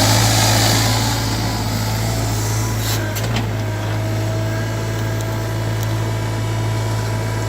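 SANY SY350 mini excavator's diesel engine running steadily, with a few short clicks about three seconds in.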